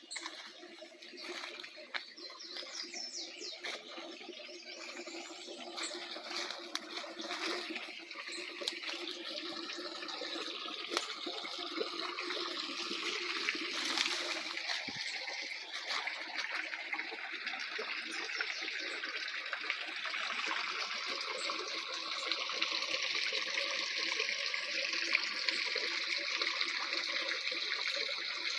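Running water trickling and splashing steadily, growing gradually louder.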